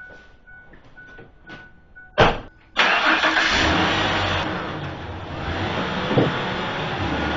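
A single knock about two seconds in, then a vehicle engine fires and keeps running steadily.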